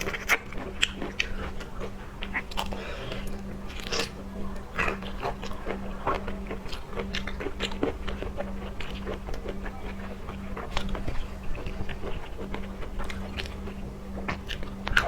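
A person chewing and biting seafood close to the microphone: many irregular wet mouth clicks and smacks, over a steady low hum.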